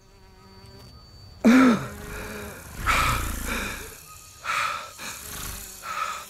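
A creature-like voice gives one sudden loud roaring cry about a second and a half in. It is followed by three heavy, rasping breaths spaced about a second and a half apart, over faint ambience.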